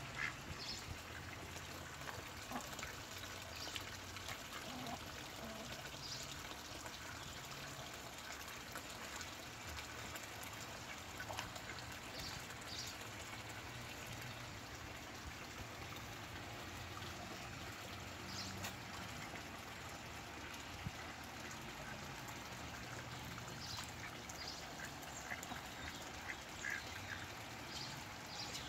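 Rouen ducks giving occasional short quacks over a steady background hiss.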